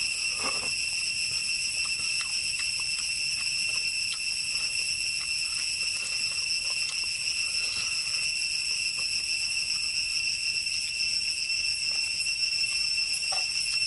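Insects droning steadily at a high pitch, one unbroken buzz. Soft clicks of eating run underneath, with a short slurp as broth is sipped from a coconut-shell bowl about half a second in.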